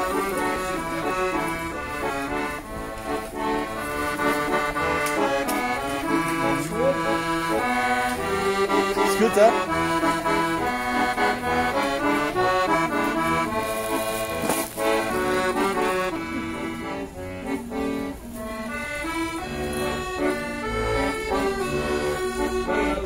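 A Beltuna chromatic button accordion playing a tune, one note and chord after another without a break.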